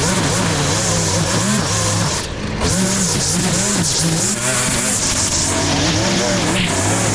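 Gas string trimmer running at high throttle while cutting grass, its engine pitch rising and falling, with a brief let-off of the throttle about two seconds in.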